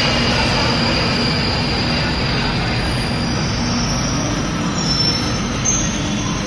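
London Underground 1995 stock tube train braking into the platform, its wheels rumbling loudly and a high whine falling in pitch as it slows to a stop.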